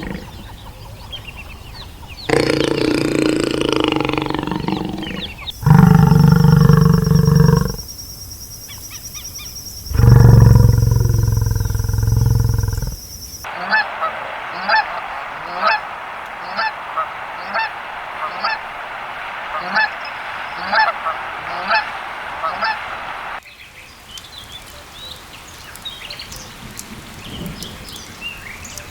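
A sequence of separate farm animal recordings: two long, loud, low calls, then a run of short, sharp, honking calls repeated about one and a half times a second for around ten seconds.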